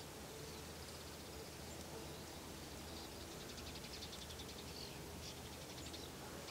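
Faint outdoor background hiss with scattered distant high chirps. About halfway through comes a short, rapid trill of evenly spaced pulses.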